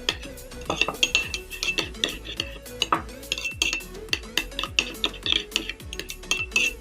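Spoon clinking and scraping against a bowl in rapid, uneven taps as a mayonnaise-and-ketchup sauce is stirred, with background music playing under it.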